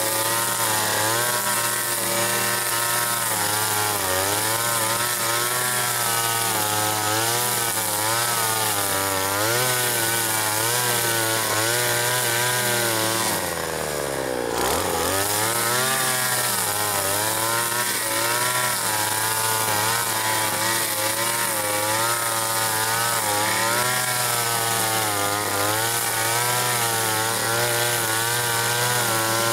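Two-stroke chainsaw cutting wood at high revs, its engine pitch wavering as the chain bites. About halfway through the revs drop sharply, nearly to idle, and then climb back up.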